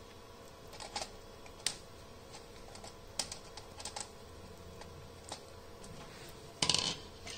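Irregular light clicks and taps of small hard objects being handled, with a louder rattling cluster of clicks about two-thirds of the way in.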